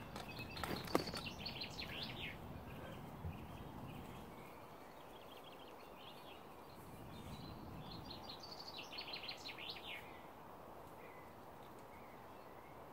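Small songbirds singing in two bursts of rapid, high chirping notes, about half a second in and again around eight seconds, over a steady low outdoor background noise. A single sharp click comes about a second in.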